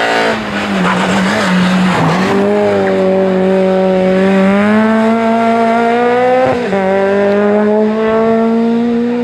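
Rally car engine under hard acceleration, its pitch climbing steadily, with one quick upshift about six and a half seconds in and the revs climbing again after it. The first two seconds are a rush of tyre noise over the engine.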